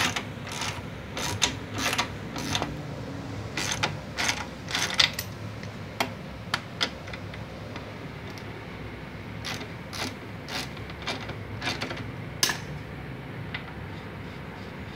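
Ratchet wrench clicking in short, irregular runs of sharp metallic clicks as it undoes the nut on a car's rear stabilizer link rubber bushing. The clicks are busiest in the first five seconds, with a few more around ten to twelve seconds in.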